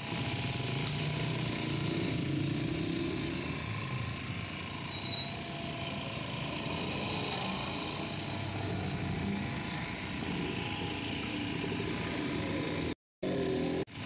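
Busy street noise: a steady hum of engines and traffic with faint voices, cutting out briefly near the end.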